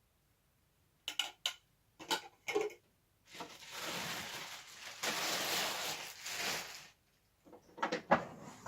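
Parts of a Numatic George vacuum cleaner being handled: two groups of light clicks and knocks, then about four seconds of rustling, then more knocks near the end.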